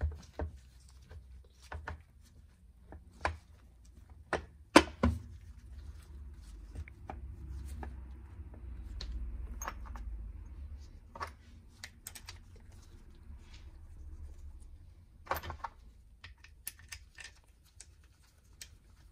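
Irregular metal clicks and knocks as an electric starter motor is seated into the aluminium crankcase of a 250 cc ATV engine and its mounting bolts are put in by hand, with one sharp knock about five seconds in.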